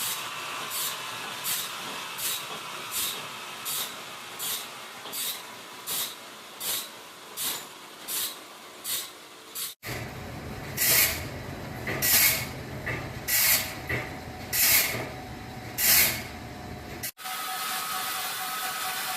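Rhythmic strokes of a hand tool working wood, about one and a half strokes a second. After a sudden cut, a louder, slower series follows at about one stroke a second over a low hum, and after another cut there is a steady machine-like hiss.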